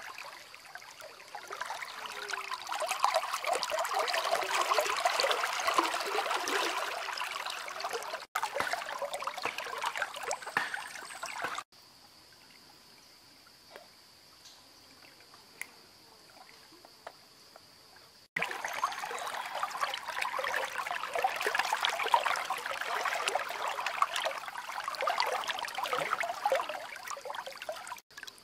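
River water lapping and splashing close to the microphone, in stretches of several seconds broken by sudden cuts. In a quieter stretch in the middle, only a faint steady high tone is heard.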